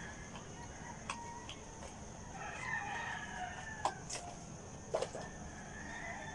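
A rooster crowing: one long call about two and a half seconds in, with another starting near the end. A few sharp clicks and taps come from the packaging being handled.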